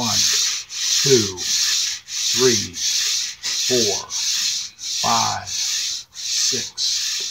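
Back-to-back Micro-Trains model train trucks on 36-inch metal wheels rolling to and fro along a curved model railway track. The wheels make a rushing, rubbing hiss on the rails in repeated surges, with a lower rumble that slides in pitch as the trucks speed up and slow. Brief gaps fall where they stop and reverse at each end of the curve.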